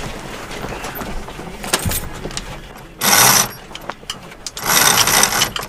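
Jib sheet winch on a Hunter 25 sailboat ratcheting in two spells, about three seconds in and again near the end, as the jib sheet is hauled in during a tack.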